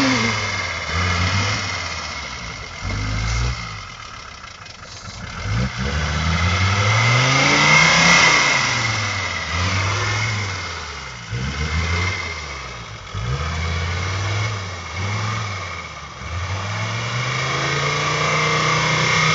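Mercedes G-Class off-roader's engine revving hard in repeated surges, climbing and dropping every second or two, as the wheels churn through mud and water, with spray splashing.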